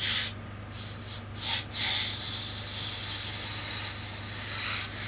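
Tailor's steam iron releasing steam into wool suit trousers during pressing: three short hissing bursts, then one long hiss of about three and a half seconds.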